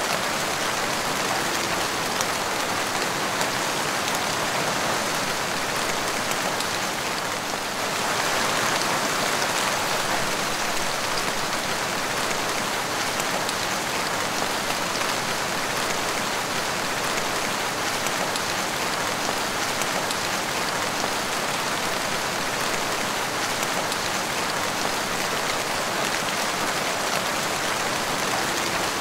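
Steady rain falling on a wet tiled porch floor, a dense even patter of drops that turns a little heavier about eight seconds in.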